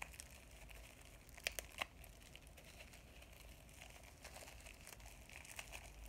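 Faint crinkling and rustling of packaging wrap being handled and pulled off a small item, with two sharper crackles about a second and a half in.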